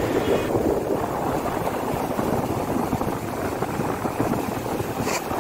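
Sea surf breaking and washing up on a sandy beach, a steady rushing noise.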